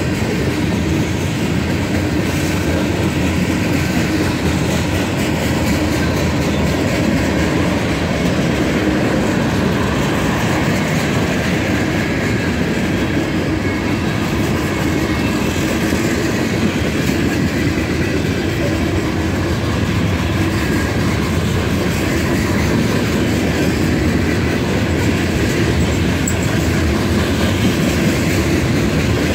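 Freight train's covered hoppers and tank cars rolling steadily past: a continuous rumble of steel wheels on rail, with repeated clicks of the wheels over the rail joints.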